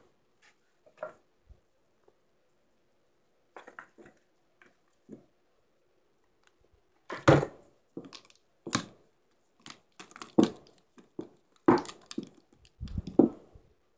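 Mini pool table balls clacking against one another and knocking on the table, short sharp clicks and knocks, a few scattered at first and then a quick run of louder ones from about halfway, some with a dull thud.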